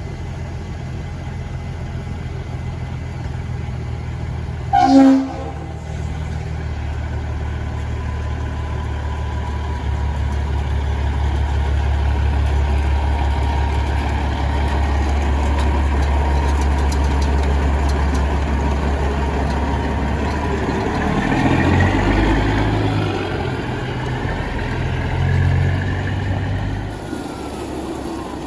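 Semi truck's diesel engine running steadily, with one short, loud blast of a truck-mounted train horn about five seconds in. Near the end the engine note steps up and down and a whine rises and falls.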